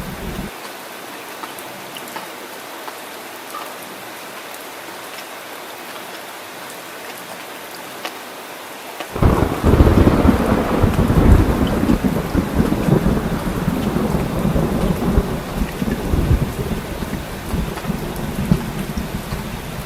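Heavy rain falling steadily. About halfway through, a loud rumble of thunder breaks in suddenly and rolls on with swells to the end.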